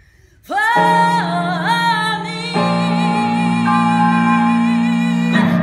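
A woman sings the long closing note of a song with vibrato, over held accompaniment chords. The voice enters about half a second in and the chord shifts once midway. Voice and chords cut off together just before the end.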